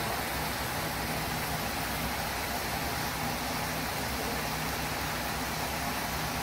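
Chicken livers sizzling and bubbling in sauce in a wok, a steady even hiss.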